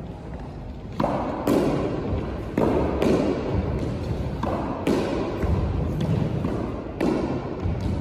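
Squash ball hit in a solo rally: sharp racket strikes and front-wall hits, mostly in pairs about half a second apart, each ringing in the echoing court. There are about seven hits.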